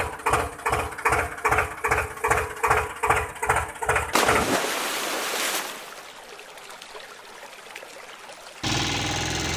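A tractor engine sound chugging at about three beats a second cuts off about four seconds in with a splash into water, followed by a quieter, steady rush of flowing water. Near the end a steadier engine sound starts.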